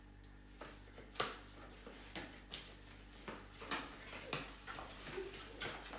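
Packaging of a GoPro Hero 9 Black box being opened and handled by hand: a string of irregular light clicks, taps and rustles of cardboard and plastic.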